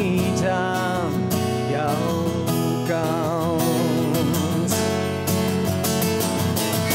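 Live acoustic pop song: acoustic guitar strummed steadily under a voice holding long, wavering notes that slide down.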